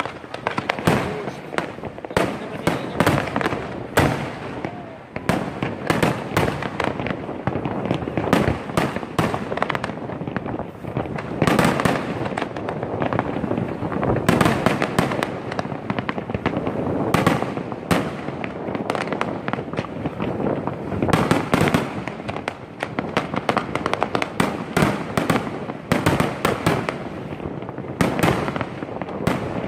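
Aerial fireworks display: many shells bursting in close succession, a continuous run of bangs and crackling with no letup.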